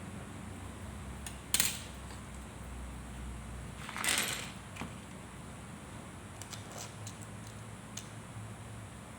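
Small hard objects being handled: one sharp click, a brief scraping rustle a couple of seconds later, then a few faint light ticks, over a low steady hum.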